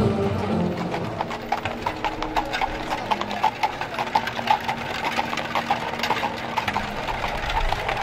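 Horse hooves clip-clopping, a quick uneven run of sharp knocks.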